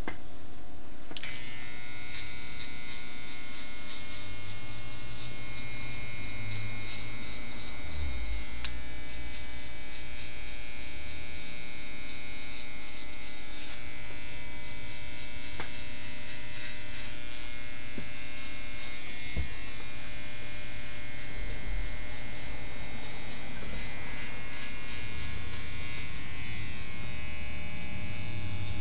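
Electric hair trimmer buzzing steadily as it cuts along the nape of the neck; the buzz changes tone about a second in and then holds steady.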